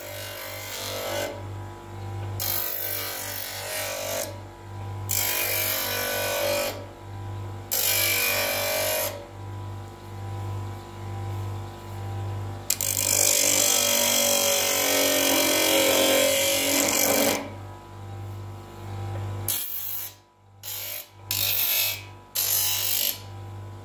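Parkside PDOS 200 C2 double bench grinder running with a steady motor hum, while a piece of plastic is pressed against the grinding wheel in repeated passes of grinding noise. Most passes last a second or two, and one lasts about five seconds just past the middle.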